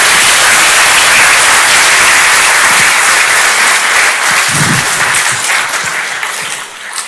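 Audience applauding, a dense, steady clapping that fades away near the end.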